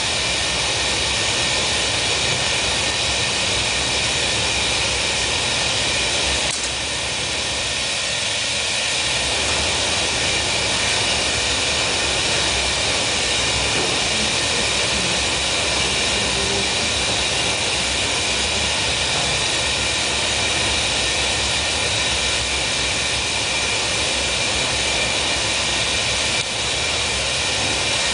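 Steady noise of a glassblowing furnace's gas burners and air blowers: an even rushing sound with a faint high whine held over it.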